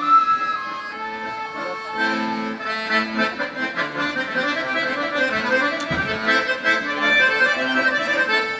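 Garmon (button accordion) playing a tune with chords on its own, with the svirel silent.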